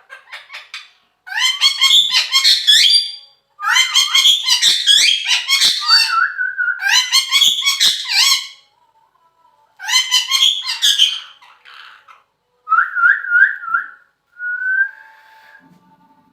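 A pet parrot calling in several loud bursts of rapid, high-pitched chattering notes, ending with a few short rising whistled notes.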